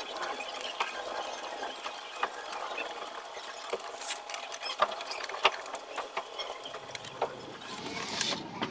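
Electrical tape being pulled off the roll and wrapped over wire joints, with irregular small clicks and rustling as the wires are handled.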